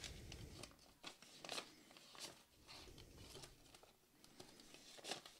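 Faint, scattered rustles and flicks of paper banknotes being handled and counted through the fingers.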